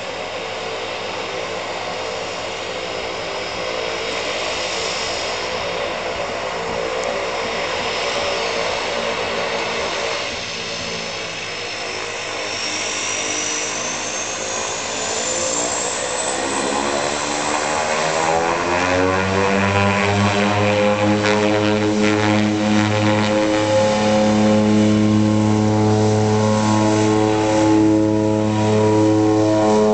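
Twin-engine DHC-6 Twin Otter floatplane's turboprop engines, at first a steady hum with a high turbine whine. From about eleven seconds in they go up to takeoff power, the drone rising in pitch and getting louder. From about twenty seconds it holds a loud steady propeller drone on the takeoff run across the water.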